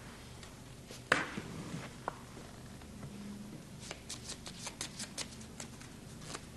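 Playing cards being handled on a felt-covered table: one sharp card snap about a second in, then a quick run of crisp clicks as the deck is shuffled between the hands.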